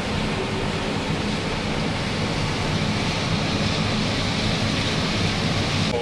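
Combine harvester running steadily in a corn field, heard from inside the cab: an even rushing drone with a steady low hum under it.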